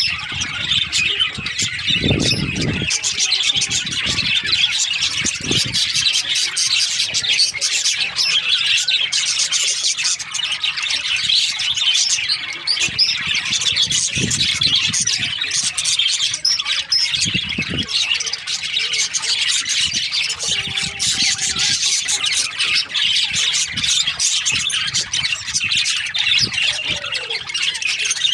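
A colony of budgerigars chattering and chirping continuously in a dense, high-pitched babble, with a few short dull thuds underneath.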